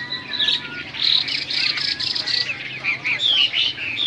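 Many caged songbirds chirping and trilling over one another, a dense chorus of short, high calls.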